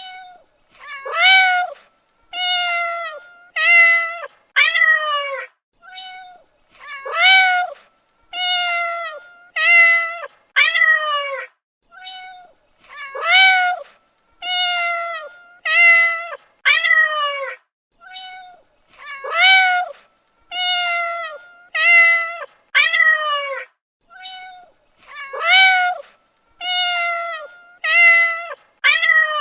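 Domestic cat meowing over and over in fairly high-pitched calls of about a second each. They come in runs of four or five, a short faint call followed by louder meows, some rising and the last of each run falling. The same run repeats about every six seconds.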